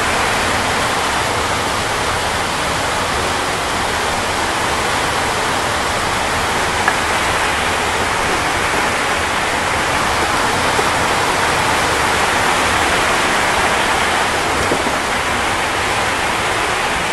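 Heavy rain pouring down steadily: a dense, unbroken hiss of falling water.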